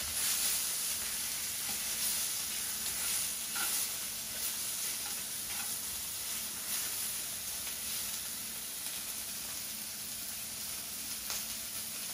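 Pork neck strips sizzling in a cast-iron skillet, a steady frying hiss, while they are stirred with a few faint clicks of the utensil against the pan.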